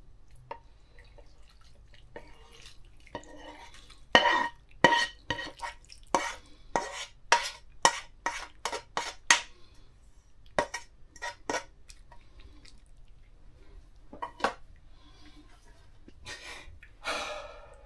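Slotted spoon scraping and knocking against a non-stick frying pan as minced beef and onion filling is scraped out into a glass dish: a run of quick taps and clacks for several seconds, a couple more later, and a short scrape near the end.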